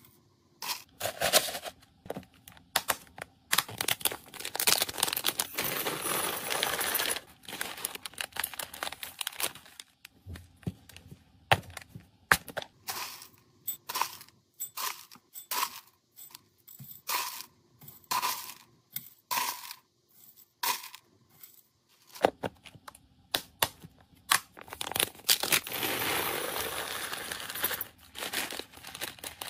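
Small pieces of dry cat food spooned from a plastic tub into a glass bowl on a kitchen scale: quick clicks and clinks of the pieces and the plastic scoop against the glass, broken by short pauses. Near the end a longer rush of kibble as the bowl is poured into a plastic bag.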